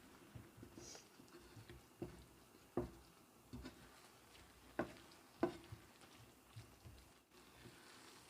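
Faint, irregular taps and clicks of a cooking utensil against the pan as stir-fried rice noodles and vegetables are handled, about seven taps.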